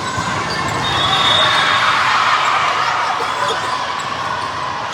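Basketball game in a gym: a basketball bouncing over steady crowd noise.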